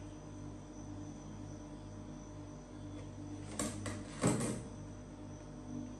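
A large kitchen knife set down on a metal wire cooling rack: two or three short knocks and a clatter about three and a half to four and a half seconds in, over a steady low hum.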